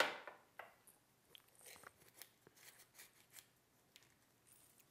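Salt and pepper being shaken over a hamburger patty on aluminum foil: a sharp rattle at the start, then faint scattered ticks and rasps.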